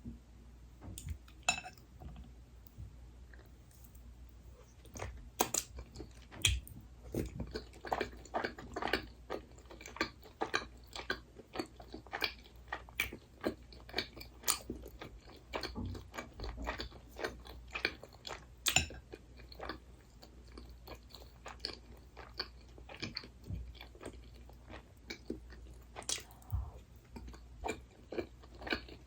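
Close-miked chewing of crunchy food, with sharp bites and crunches: only a few in the first seconds, then steady crunching from about five seconds in.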